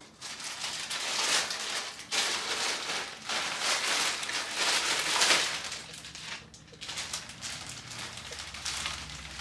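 Plastic mailer bag crinkling and rustling as it is handled and opened, with plastic-wrapped items pulled out; it comes in uneven spells with brief pauses and grows quieter near the end.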